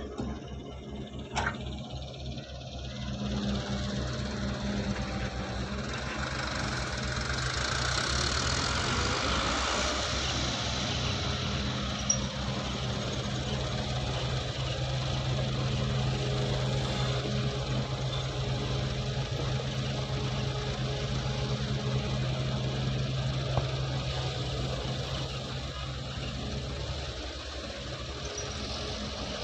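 Diesel engine of a wheeled excavator running steadily as it digs and loads soil, a low even hum that grows louder a few seconds in. A single sharp click sounds about a second in.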